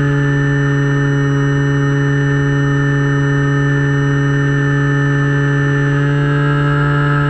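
Finwing Penguin RC plane's electric motor and pusher propeller running at steady throttle in flight: a loud, steady hum with wind noise over the on-board camera, shifting slightly in pitch near the end.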